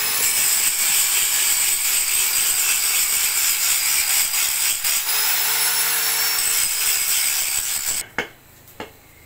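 Angle grinder grinding steel, a steady high whine with hiss, smoothing the surface. The grinder cuts off about eight seconds in, followed by two sharp knocks.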